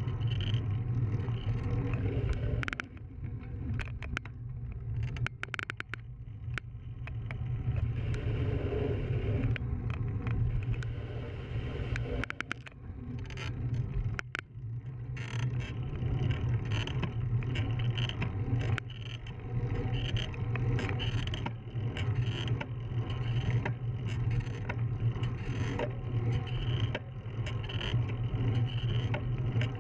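Bicycle riding on asphalt: a steady rush of wind and tyre noise, dotted with frequent small clicks and rattles. It eases off briefly twice, a few seconds in and again about halfway through.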